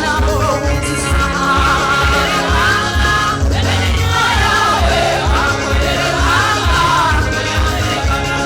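Live gospel praise-and-worship music: voices singing together over a steady bass beat.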